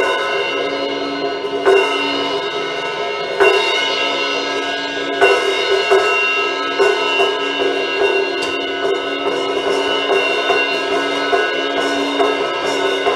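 Instrumental worship music: held, sustained chords over a drum kit, with a cymbal crash and drum hit about every second and a half to two seconds.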